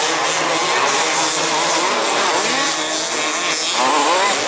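Several 1/5-scale petrol RC cars' two-stroke engines revving up and down together, their pitches rising and falling and overlapping as they race.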